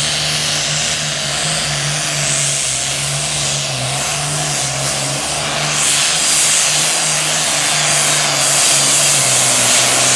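Super farm class pulling tractor's turbocharged diesel engine running steadily at high revs with a strong turbo whistle, held there to get hot before the pull. It gets a little louder about six seconds in.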